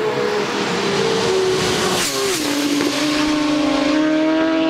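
Superbike racing past at full speed: its engine note is high on the approach, drops sharply in pitch about two seconds in as it goes by, then holds at the lower pitch as it pulls away.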